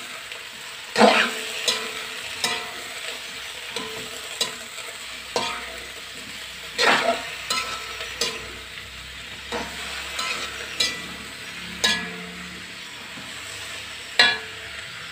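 Metal spatula scraping and knocking irregularly against a metal wok as vegetables and tofu are stir-fried, over a steady sizzle.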